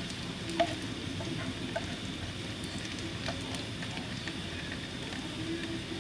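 Ginger frying in sesame oil in a pan, a steady sizzle with scattered sharp pops and taps, the loudest just over half a second in. A spatula stirs through the oil at first.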